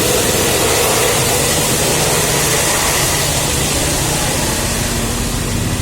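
Steady road noise from a passing bus: a diesel engine running low under a loud rush of tyre and wind noise, with no horn sounding.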